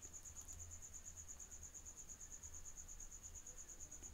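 Faint, steady high-pitched pulsing trill, about ten pulses a second, over a low hum.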